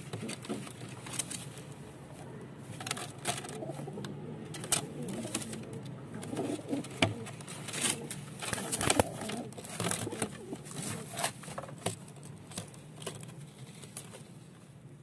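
Domestic pigeon cooing: a low warbling coo that runs on and off, with frequent sharp clicks and scratches over it.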